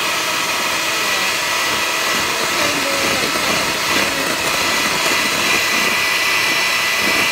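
Electric hand mixer running steadily at speed, its beaters whipping egg whites into foam on the way to soft peaks, with a constant motor whine.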